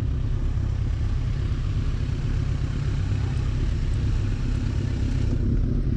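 Motorcycle running, picked up by a GoPro as a steady low rumble with hiss above it; the higher hiss drops away about five seconds in.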